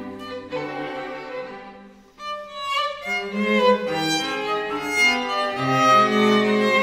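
A string quartet of two violins, viola and cello playing classical chamber music. The playing dies away almost to nothing about two seconds in, then starts again and grows louder.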